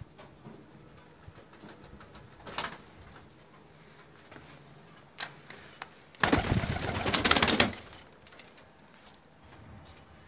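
Domestic pigeons cooing softly in a small room, with a loud rustling burst about six seconds in that lasts about a second and a half.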